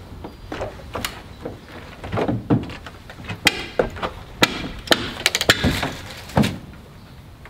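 Scattered wooden knocks and clatter as old wooden window frames are handled during window removal, with a quick run of sharp knocks about five seconds in and a duller thud shortly after.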